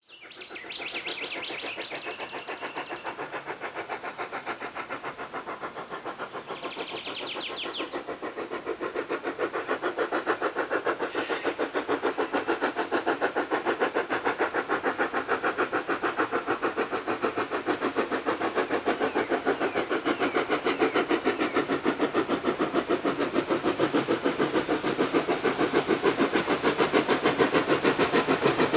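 Steam locomotive 2705's exhaust chuffing in a quick, even rhythm as it approaches, growing steadily louder. A brief high chattering sounds over it twice, once at the start and again about seven seconds in.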